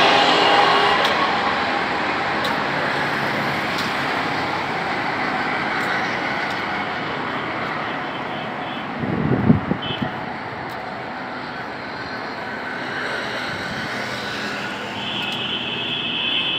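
Steady hum of road traffic, with a brief low rumble on the microphone about nine seconds in.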